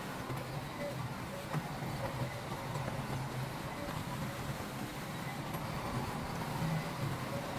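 Diesel engine of heavy earthmoving machinery running steadily under load, with a low, even drone and a faint whine above it.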